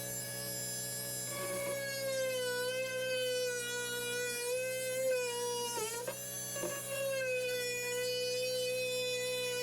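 Reciprocating saw running as it cuts out an opening in a boat panel. Its motor gives a steady high whine that wavers, dips sharply in pitch about six seconds in, then recovers.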